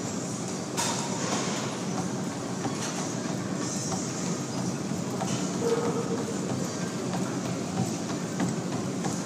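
Motorized treadmill running at speed, its belt giving a steady hum, with a sprinter's quick footfalls on the belt. About a second in the sound steps up as the feet drop onto the moving belt.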